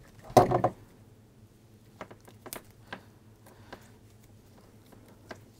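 A short voice sound about half a second in, then scattered faint clicks and taps as a utility knife and the sheath of a three-core flex are handled while the cable end is stripped.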